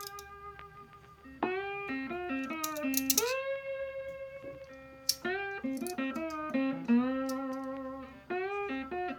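Background music: a plucked guitar playing single notes, some of them sliding in pitch, with a few sharp clicks.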